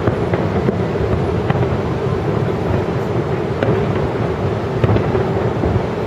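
Aerial fireworks shells bursting in quick succession: a continuous rumble of overlapping booms, with a few sharper cracks scattered through.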